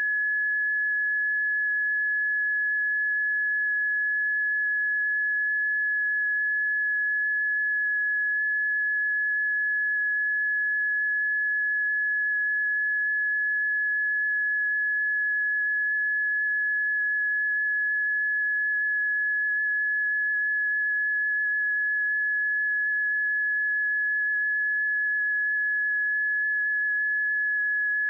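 Early-warning monitor tone: a single high, steady pure tone that holds one pitch throughout. An unchanged tone is its resting state, meaning no new earthquake or eruption is being flagged.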